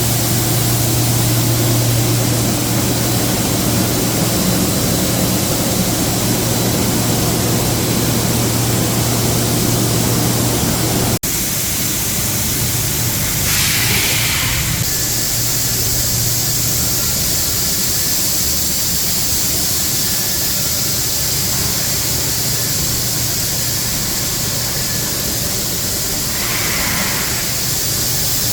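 Ducted workshop air conditioning unit running, its fan blowing a steady rush of air with a low hum. About eleven seconds in the sound breaks off abruptly and resumes with the hum weaker, and there are two brief brighter hisses later on.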